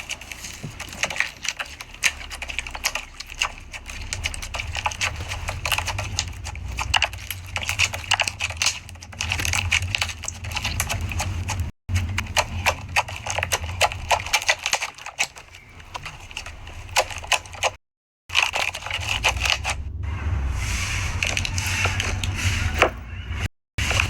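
Slime being squeezed and pressed by hand, giving dense irregular crackling and popping clicks over a steady low hum. The sound breaks off to silence for a moment three times.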